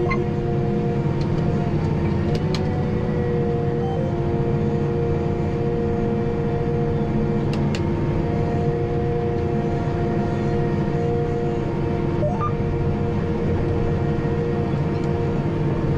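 John Deere 8320R tractor's diesel engine heard from inside the cab, running steadily under load while pulling a disk: an even drone with a constant whine over it and a few faint clicks.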